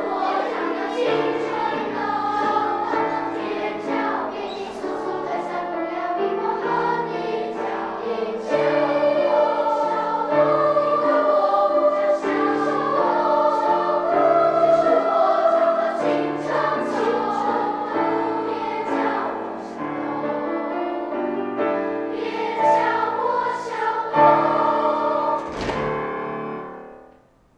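Elementary-school treble choir singing with piano accompaniment, ending on a final chord that dies away near the end.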